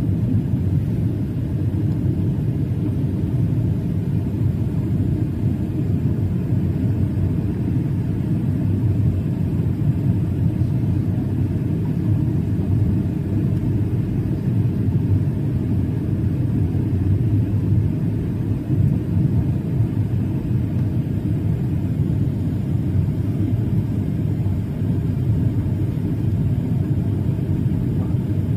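Steady low rumble of engine and airflow noise inside the cabin of a Boeing 737-800 in flight, from its CFM56-7B turbofans.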